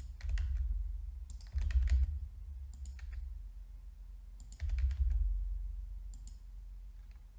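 Computer keyboard keys and mouse buttons clicking in a few short, scattered groups, each group with a dull low thump.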